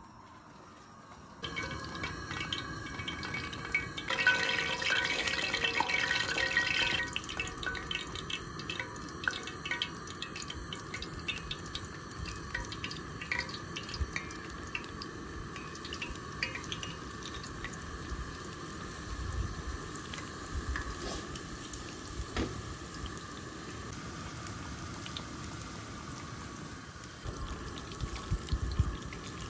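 Egg rolls frying in hot oil in a cast iron skillet: a steady sizzle with frequent crackles and pops, starting about a second and a half in and loudest for a few seconds from about four seconds in.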